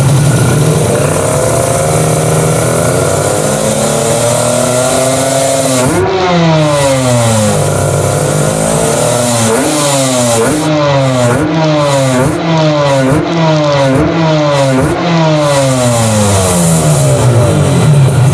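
Kawasaki Ninja RR 150's two-cylinder two-stroke engine revved from idle in one long climb lasting about five seconds. It is then blipped about eight times in quick succession, each rev rising and falling, before it settles back to idle near the end.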